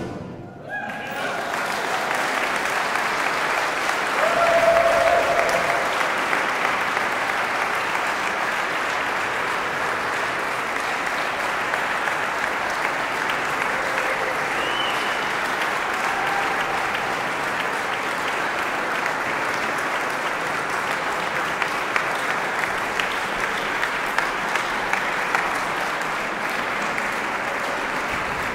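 A concert audience applauding steadily. The clapping starts about a second in, right after the harpsichord's last note, and is loudest around four to five seconds in.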